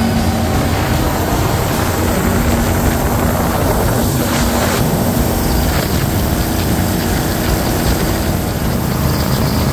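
LS V8 engine of a jet boat running steadily at speed, with the rush of water and spray from the jet.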